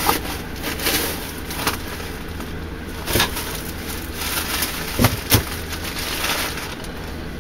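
Scattered clicks, knocks and rustles of a parcel and its metal parts being handled, with two sharper knocks close together about five seconds in.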